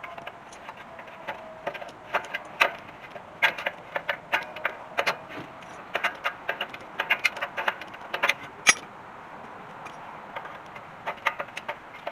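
Irregular metallic clicks and clinks of hand tools working on a truck's drum brake assembly as it is taken apart, with a quieter stretch about two-thirds of the way through.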